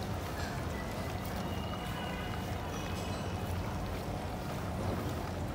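Portable gas stove burner running under a wok of hot frying oil: a steady low rumble and hiss.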